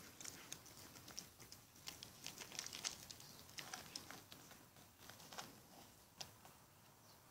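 Faint, irregular crunchy clicks of a kitten and a dog chewing food: the kitten eating from a plastic bowl, the Australian shepherd gnawing a dry bread crust. The clicks are densest a little before the middle and thin out towards the end.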